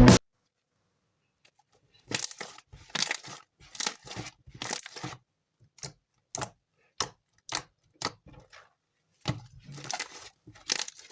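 Slime being handled by hand: a run of short, separate squishing and crackling sounds, about one to two a second, starting about two seconds in.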